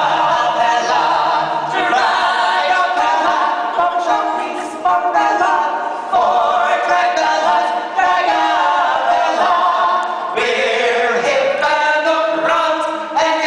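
A cappella vocal quartet of male voices singing in harmony, with no instrumental backing.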